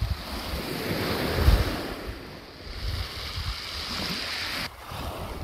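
Sea waves breaking and washing over a shingle beach, swelling and ebbing, with wind buffeting the microphone; the hiss cuts off abruptly near the end.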